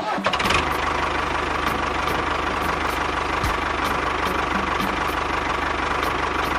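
An engine idling at a steady, even level, cutting in abruptly at the start.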